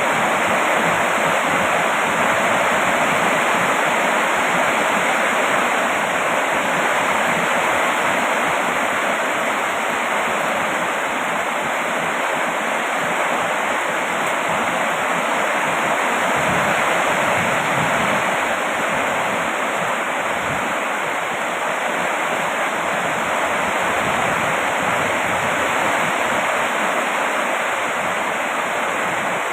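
Heavy rain falling steadily: a continuous, even hiss of water.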